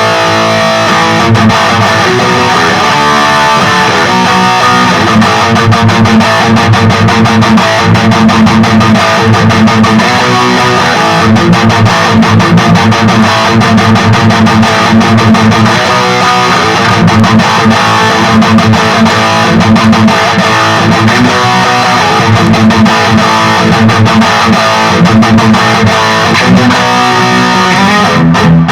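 Electric guitar with active pickups played through a Peavey Vypyr 15 modelling amp on its high-gain XXX setting: heavily distorted rhythmic riffing, with a few brief stops near the end.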